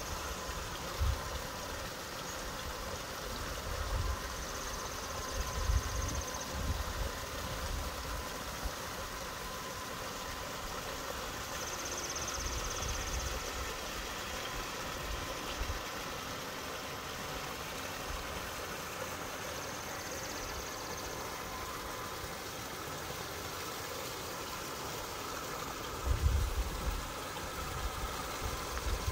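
Large-scale garden model train, a Rock Island E8 diesel and a Mikado pulling track-cleaning cars, running with a steady engine-like sound over the hiss of a small backyard waterfall. Wind gusts thump on the microphone a few seconds in and again near the end.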